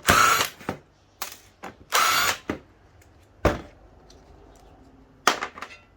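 Handheld power driver whirring in two short bursts about two seconds apart, backing out the screws of a transformer's lid, followed by a few sharp knocks.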